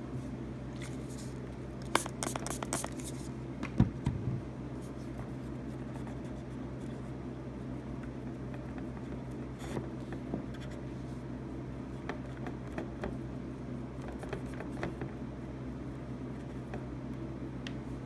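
Scratching and scraping on a graphics card's circuit board at the 6-pin power connector's solder pads: a cluster of sharp clicks and scrapes about two to four seconds in, then lighter scattered scratches. A steady low hum runs underneath.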